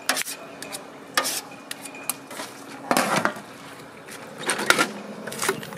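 A metal ladle scraping and knocking in an aluminium taho bucket, with a few separate metal-on-metal clanks, including the clatter of the bucket's lid being handled.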